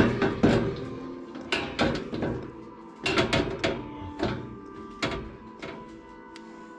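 Sheet-metal front grille of a Fahrenheat wall heater knocking and clattering against the unit as it is pressed and aligned into place: a string of sharp knocks and taps, loudest about three seconds in. Background music fades in near the end.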